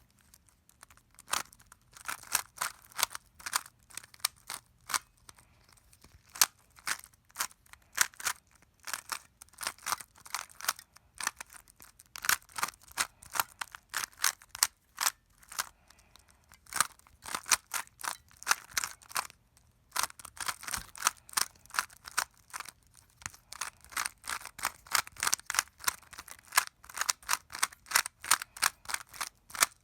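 Creativeline SpeedRipper plastic Rubik's cube being solved by hand: rapid runs of light clicks as its layers are turned, in bursts separated by short pauses.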